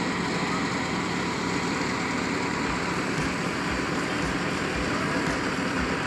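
Tractor-powered wheat thresher running steadily, an even mechanical hum from the engine and threshing drum.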